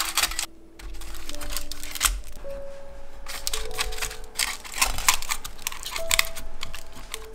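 Aluminium foil crinkling and rustling in irregular bursts as hands press it around food in a lunch box, over soft background music of slow held notes.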